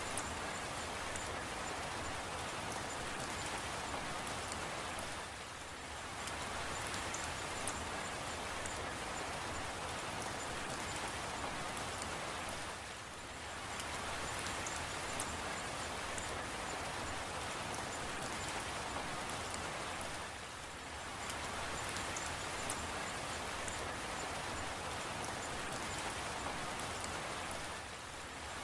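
Steady rain falling, an even hiss with scattered sharper drop ticks; the level dips briefly about every seven and a half seconds.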